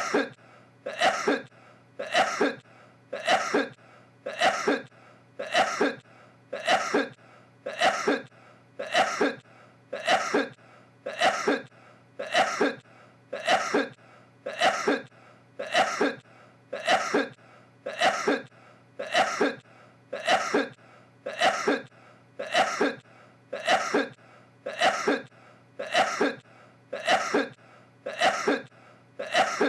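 A man's sneeze, the same recording repeated in a loop about once a second, every repeat identical.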